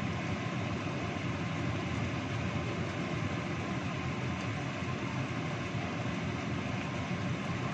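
Steady rumbling noise from a gas stove burner under a wok of chicken simmering in coconut milk, running evenly with no distinct knocks or changes.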